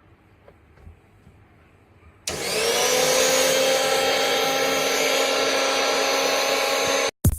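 Eveready Glowy 500-watt mixer grinder's motor switched on about two seconds in, spinning up quickly to a loud, steady whine and running for about five seconds before cutting off suddenly.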